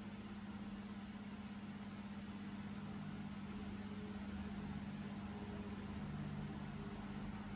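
A steady low hum over a faint even hiss.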